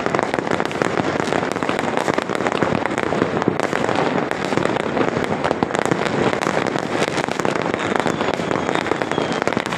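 Many fireworks and firecrackers going off at once across a city: a continuous, dense crackle of pops and bangs with no pause.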